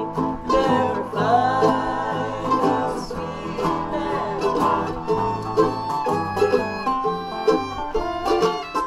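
Acoustic string band playing an instrumental passage with no singing: a bowed fiddle over strummed guitars and other plucked strings.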